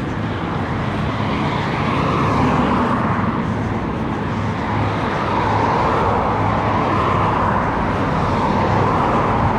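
Steady car driving noise heard from inside the cabin: engine hum and tyre and road rumble, swelling and easing slightly.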